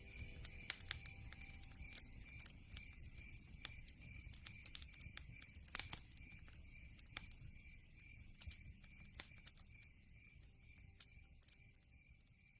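Wood fire crackling in a fireplace: irregular sharp pops and snaps over a low rumble of burning, slowly growing fainter.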